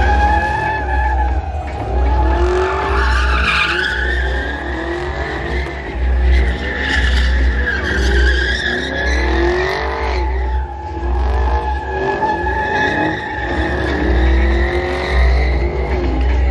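Chevrolet Camaro SS doing burnouts and donuts: tires squealing in a steady high screech, with the V8 revving up and down beneath it. The squeal dips briefly about two-thirds of the way through.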